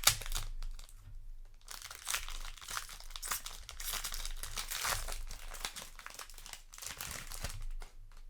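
A trading-card booster pack wrapper being torn open and crinkled while handled. A sharp crackle comes right at the start, there is a short pause about a second in, then steady crinkling that fades out near the end.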